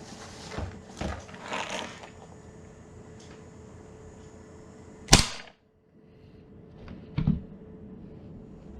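Umarex H&K USP gas blowback airsoft pistol firing a single shot about five seconds in, a sharp crack as the gas vents and the slide cycles. Handling rustle comes before it, and a lighter knock follows about two seconds later.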